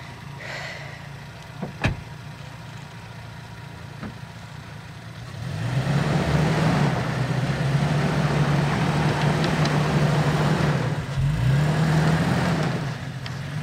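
2020 Toyota Tacoma TRD Off-Road pickup's engine pulling hard through loose sand in two-wheel drive, its note rising and falling under a rush of tyre and sand noise. It comes in about five seconds in, after a quieter stretch with a single click.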